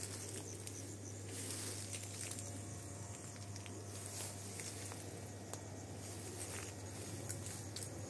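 Outdoor ambience among trees: a steady even hiss with a low steady hum underneath and faint scattered ticks and rustles, with no clear birdsong.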